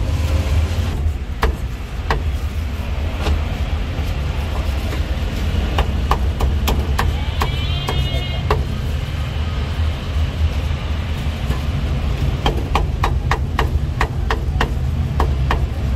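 Meat cleaver chopping braised pork on a thick round wooden chopping block. Single chops come every second or so, then a quick run of about three to four chops a second near the end, over a steady low rumble of street traffic.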